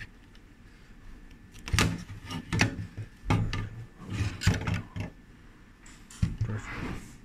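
Clacks, knocks and scraping as the black G3030 unit is worked loose and slid out of its metal housing, in two clusters: a busy run starting about two seconds in and a shorter one near the end.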